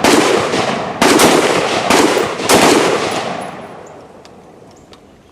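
A gun fired four times in quick succession, the shots about half a second to a second apart, each followed by a long echoing tail that dies away after the last shot.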